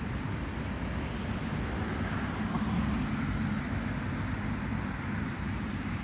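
Steady low outdoor rumble with a fainter hiss above it, without distinct events.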